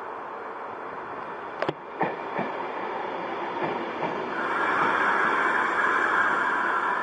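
InterCity 225 train (Mk4 coaches led by a Driving Van Trailer) running into the station past the platform, slowing on arrival. A few sharp clicks of wheels over rail joints come about two seconds in, and the rolling noise grows into a louder, steady hiss from about halfway.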